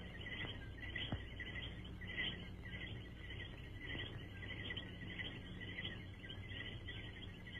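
Faint, irregular high-pitched chirping over a steady low hum from an old soundtrack, with a single soft click about a second in.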